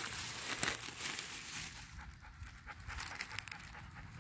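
Chocolate-red Siberian husky panting steadily with its mouth open and tongue out. Plastic bags crinkle during the first second or two.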